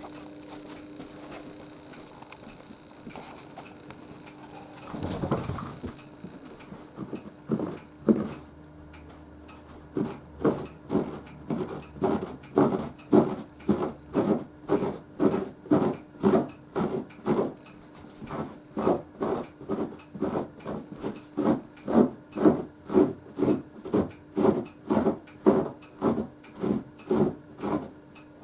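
Akita dog snoring: even rasping breaths about one and a half a second, starting about ten seconds in and growing louder. A brief rustle of movement comes about five seconds in. The owner puts the snoring down to sleeping with the head tilted up rather than to any breathing illness.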